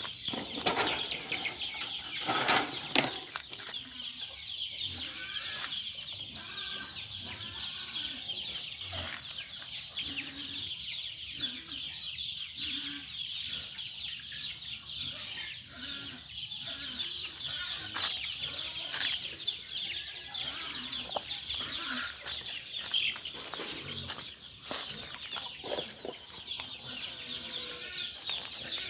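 Backyard chickens clucking under a steady high-pitched chirring, with a few sharp knocks in the first few seconds.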